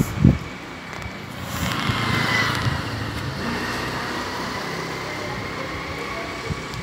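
A motor vehicle passing close by on the street, swelling about a second and a half in and then slowly fading, with a faint high whine through it.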